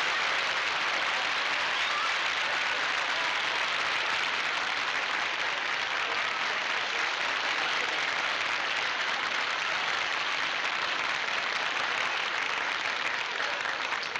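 Studio audience applauding steadily for a long stretch, dying down near the end.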